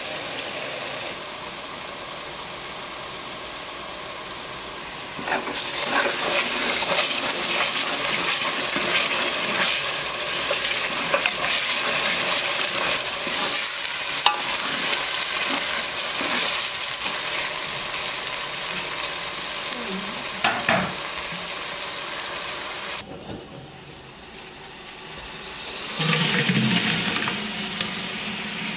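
Onions frying in oil in an aluminium pot: a steady sizzle that turns louder about five seconds in, with a metal spoon stirring and knocking against the pot now and then. The sizzle drops near the end, followed by scraping as the mixture is worked out of the pot.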